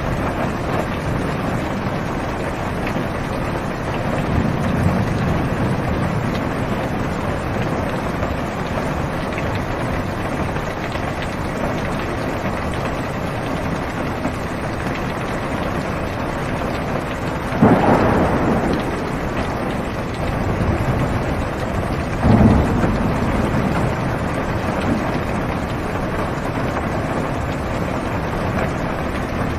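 Heavy rain falling steadily on a car's roof and windows, heard from inside the cabin. A low rumble of thunder swells about four to six seconds in, and two sudden thunderclaps come about 18 and 22 seconds in, each fading over a second or two.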